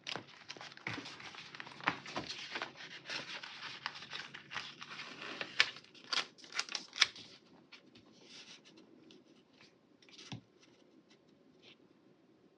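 Paper and plastic rustling and crinkling as planner sticker sheets are handled and searched through, busy for about the first seven seconds, then a few light taps and rustles.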